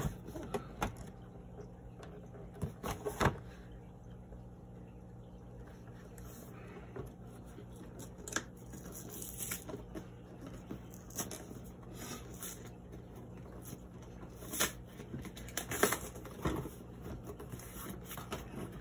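Cardboard packaging being handled and pried open by hand: irregular rustles, scrapes and sharp taps of cardboard, the strongest about three seconds in and again near the end, over a faint steady low hum.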